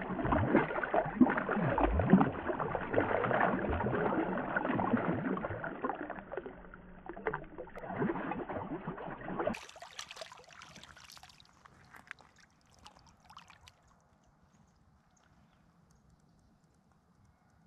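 A small channel catfish thrashing and splashing in shallow water as it is let go, for about nine seconds. The splashing then stops suddenly, leaving faint lapping that dies away.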